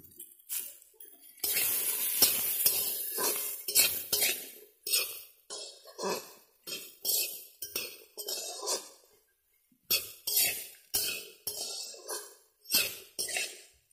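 Chopped taro stems frying in hot oil in a metal pan. A burst of steady sizzling comes about a second and a half in, then a spatula scrapes and clinks against the pan as the stems are stirred, about twice a second.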